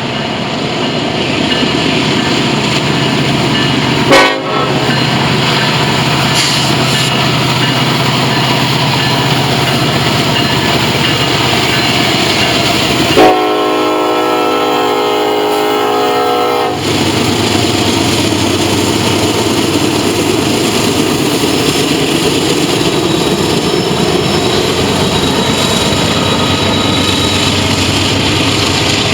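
Diesel freight train rolling past close by, a steady rumble of wheels on rail. The locomotive's horn sounds one chord for about three and a half seconds around the middle, and a brief loud burst comes about four seconds in.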